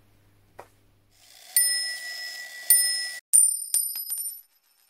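Logo sound effect: a hiss swelling up from about a second in, then a few sharp, bright bell-like chime strikes, each ringing on with high tones.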